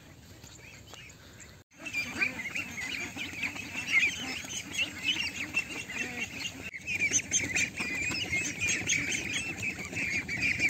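A large flock of white domestic ducks quacking, many calls overlapping at once. It starts suddenly about a second and a half in.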